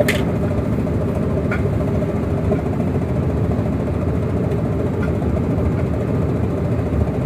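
Tugboat's diesel engine running steadily while towing a barge, a low, even drone with two brief clicks in the first two seconds.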